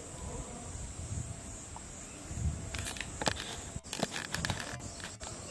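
Quiet outdoor ambience with a steady high insect drone, low rumbles and a few faint scattered clicks and crackles in the middle.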